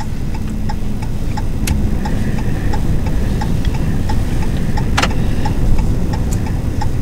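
Storm wind buffeting a parked truck, heard from inside the cab as a steady low rumble, with the hazard-light flasher ticking evenly about three times a second. Two sharp clicks come, one near two seconds in and one near five seconds in.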